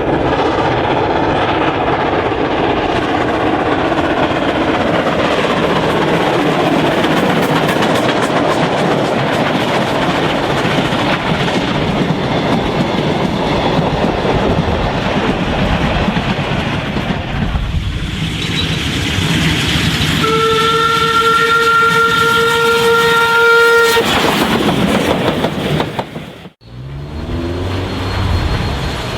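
Steam train running along the track with a steady rumble and rail noise. About twenty seconds in, its whistle gives one long steady note lasting about three and a half seconds. The sound breaks off abruptly a few seconds later.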